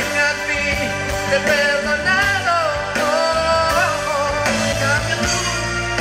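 A live pop ballad: a male singer holds long, wavering notes over a keyboard-led band accompaniment, amplified through the stage sound system.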